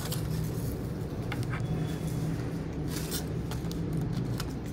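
Steady low machine hum in the background, with a few brief clicks.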